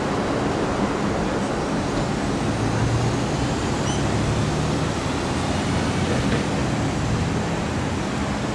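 Steady outdoor city noise, a hiss and rumble, with a low engine-like hum rising a little in the middle and a faint chirp about halfway through.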